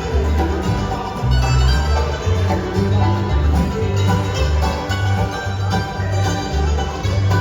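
Live band music, plucked strings over a steady, bouncing bass line.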